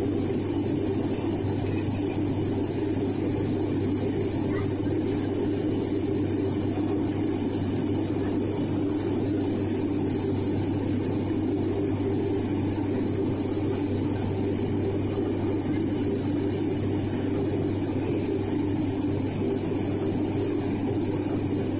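Airliner engines droning steadily, heard from inside the passenger cabin during the climb after takeoff: a constant low hum under an even hiss, with no change in pitch or level.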